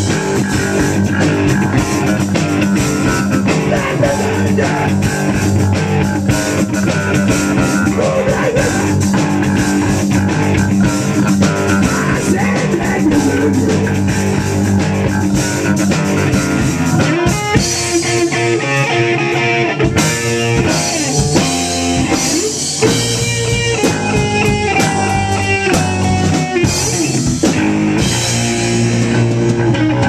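Rock band playing live at full volume: electric guitar and bass guitar through amplifiers, with drums. About halfway through, the low end thins and separate guitar notes stand out.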